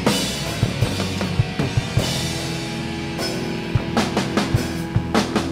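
Live rock band playing without vocals: a drum kit beating steadily under electric guitar and bass, with a held note coming in about two seconds in.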